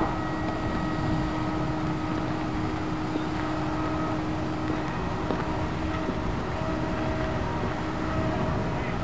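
Steady drone of machinery running, with a constant hum and a low rumble of wind on the microphone.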